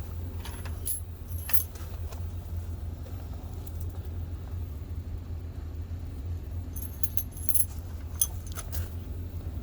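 Small metal hardware clinking: bolts and washers being handled in two short clusters of clicks, over a steady low hum.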